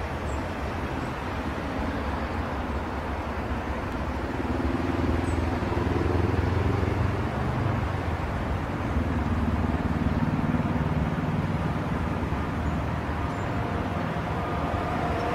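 Steady outdoor rumble of traffic at a railway station, swelling twice in the middle. Near the end a faint steady whine sets in as the SNCF BB 7200 electric locomotive draws nearer.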